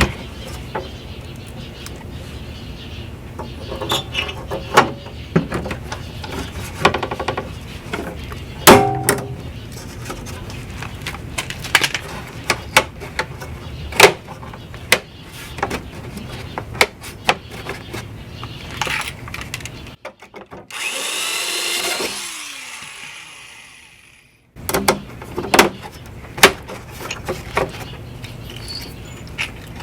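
Hand work on pop rivets in metal trim: scattered sharp clicks and knocks. About two-thirds of the way through, a power drill runs for a few seconds and winds down.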